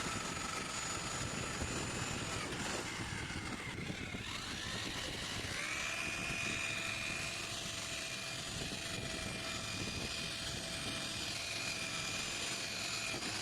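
Electric drill boring a hole in a water tank, running with a steady whine. About two and a half seconds in the motor slows and stops, then it spins back up a few seconds later and runs steadily again.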